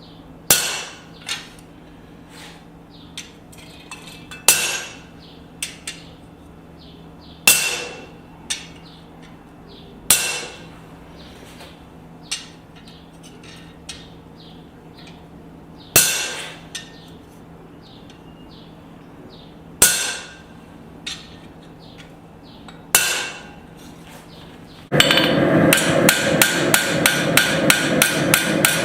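Hand hammer striking steel on an anvil in single ringing blows every few seconds, with light taps between, while forging a steel cross blank. Near the end a louder stretch begins: a fast, even run of strikes, about four a second, over a steady rushing noise.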